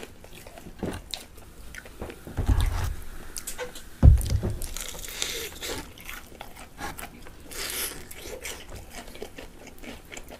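Close-up eating sounds: biting into and chewing crispy fried chicken, with small crunches and crackles as the pieces are torn apart by hand. Two low thumps, about two and a half and four seconds in, the second the loudest sound.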